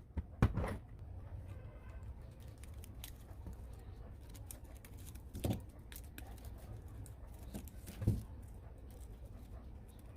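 A few light knocks and clicks, as of small parts being handled on a workbench, near the start, about five and a half seconds in and about eight seconds in, over a low steady hum.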